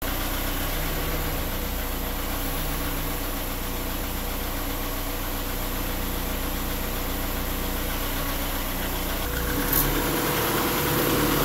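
Honda B18B1 four-cylinder engine idling steadily with the A/C switched on, heard from beside the open engine bay, with a faint steady whine over the running. A short click comes near the end, and the sound grows a little louder after it.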